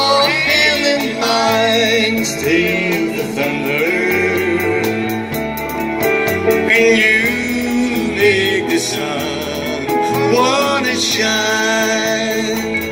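Live country band playing, with electric guitars and drums keeping a steady beat under a man's singing.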